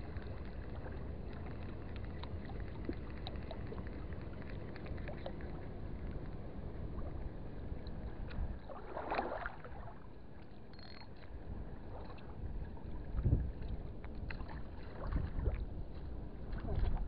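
Steady low outdoor rumble, as of wind on the microphone at the sea wall. A brief voice comes about nine seconds in, and a few louder low thumps come near the end.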